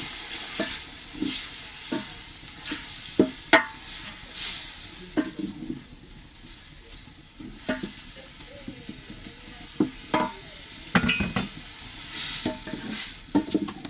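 Silverfish frying in a pan with a steady sizzle, while a spoon stirs them, scraping and knocking against the pan a dozen or so times.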